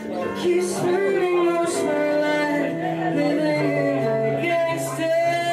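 Live band music: a saxophone holds long notes over a Nord Stage keyboard's chords and stepping bass line, with a voice singing.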